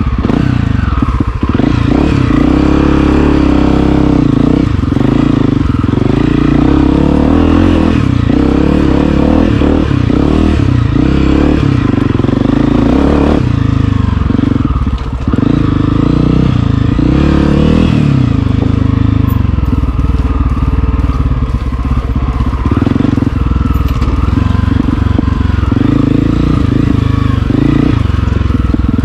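Honda CRF250F dirt bike's air-cooled single-cylinder four-stroke engine running on a trail ride, its note rising and falling with the throttle.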